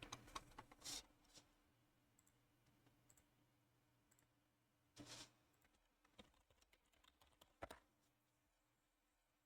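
Faint computer keyboard typing and clicking in short spurts: a cluster of keystrokes at the start, another about halfway, and a few more toward the end.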